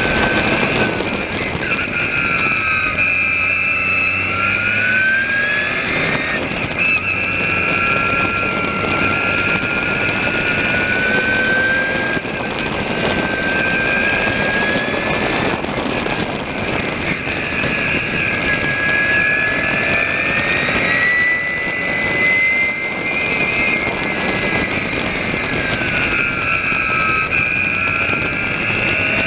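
Maserati Barchetta's twin-turbo V6 race engine at full lap pace, heard from on board: its pitch climbs steadily through each gear and drops back at the shifts and braking, again and again, over a constant rush of wind and road noise.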